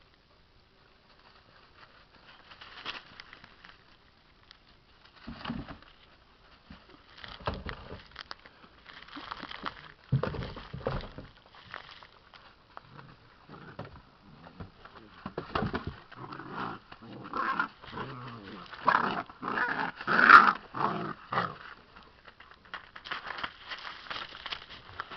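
Puppies at play, giving short growls and whimpers among irregular scuffles and knocks. The sounds come thickest in the second half and are loudest about twenty seconds in.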